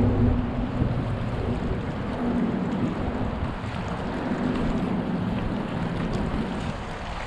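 Wind buffeting the microphone over small waves lapping against a rocky shoreline, with a low hum that rises and fades underneath.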